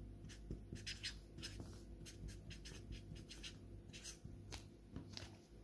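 Felt-tip marker scratching on paper in short, irregular strokes as letters are written by hand.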